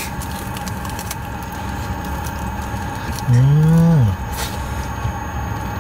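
A person making one drawn-out 'mmm' of enjoyment while eating, about three seconds in, its pitch rising and then falling. It sits over a steady low hum.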